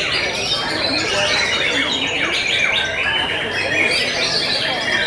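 Several caged white-rumped shamas (murai batu) singing at once in competition: a dense, unbroken mix of overlapping whistles, rising and falling phrases and rapid chattering trills.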